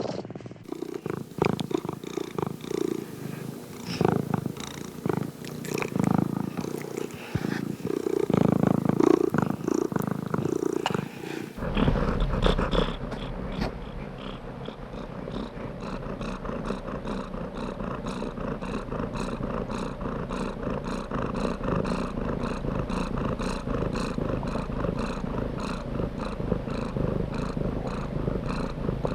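Domestic cat purring. The first part is uneven and irregular; about a third of the way in it changes abruptly to a steady, evenly pulsing purr.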